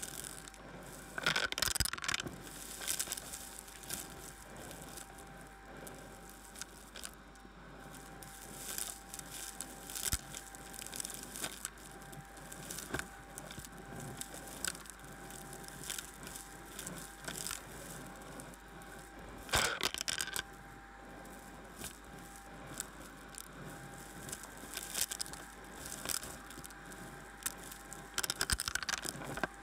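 Vacuum cleaner running with a steady whine while its crevice tool sucks clumps of fluff and small debris off a carpet, with continuous crackling as bits go up the wand. Louder clattering bursts come about two seconds in, around twenty seconds and near the end.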